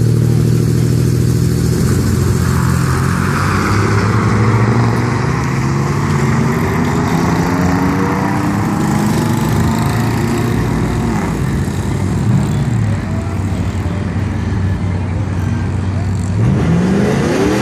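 Pickup trucks launching down a drag strip, their engines revving hard with the pitch climbing and dropping back at each gear shift as they pull away. A steady engine drone runs underneath, and another engine revs up near the end.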